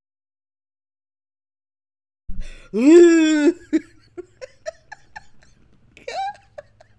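A woman laughing: after about two seconds of dead silence, one long high note, then a run of short laughs and one more burst near the end.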